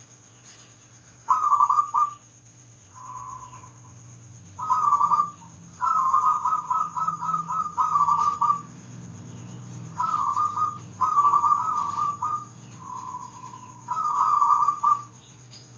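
Zebra dove (perkutut) song: repeated phrases of quick, rattling coo notes held at one pitch, about eight phrases with short gaps, some long and some softer. A faint steady low hum runs underneath.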